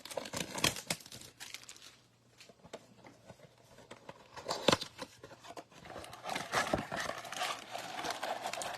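Packaging of a Bowman baseball-card blaster box being opened: plastic wrap crinkling and tearing, with scattered snaps and one sharp snap midway, and denser crinkling from about six seconds in.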